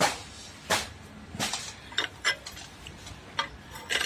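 Sharp metallic clanks and clinks, about seven at uneven intervals, as a flat steel strip is handled and worked against the dies of a hand-operated bending tool.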